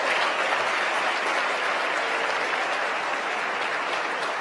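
Mission control crowd applauding steadily, slowly fading, in celebration of a successful main engine cutoff and stage separation of the Falcon 9.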